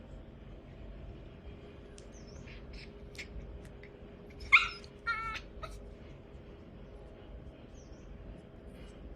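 A puppy makes one sharp, short sound about four and a half seconds in, followed at once by a brief wavering whimper; a few faint clicks around it.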